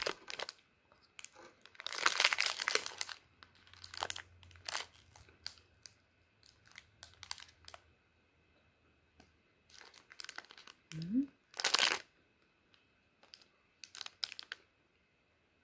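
Foil snack wrapper crinkling and tearing as it is peeled open and handled, in irregular bursts that are loudest about two seconds in and again near twelve seconds. A brief rising hum comes just before the second loud crinkle.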